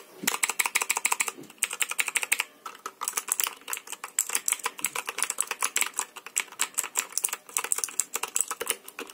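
Computer keyboard keys being pressed in quick succession: a fast, sharp clicking of about ten keystrokes a second, with a few brief pauses.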